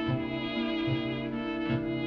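Background music: held melodic notes over a low pulse that recurs about every 0.8 seconds.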